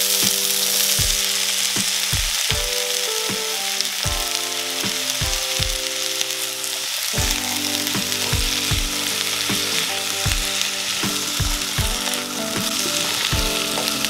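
Mixed vegetables sizzling steadily in a hot oiled wok while they are stirred with a spatula, over background music with a steady beat.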